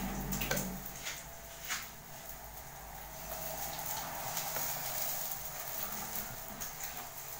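Kitchen clatter while cooking: a few sharp knocks and clicks of utensils in the first couple of seconds, over a steady high hiss.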